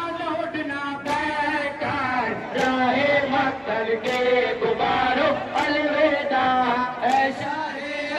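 Men's voices chanting a Muharram mourning chant in unison, with a sharp beat about every second and a half.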